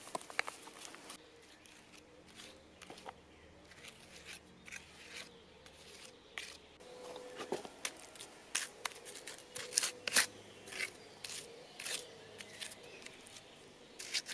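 Small trowel scraping and dabbing wet clay onto a stone wall: a run of short, irregular scrapes and clicks. These are sparse at first and grow denser and louder in the second half, where the trowel works the clay.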